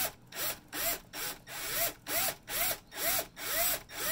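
Cordless drill boring a 2.5 mm pilot hole into a soft brass flange, run in short bursts about three times a second, the motor whirring up and back down with each burst.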